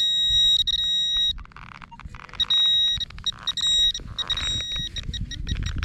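Handheld metal-detecting pinpointer beeping at the hole: a buzzy tone at one fixed pitch that comes on and cuts off in stretches several times, signalling metal close to the probe. Low scraping and rustling of soil and roots runs beneath it.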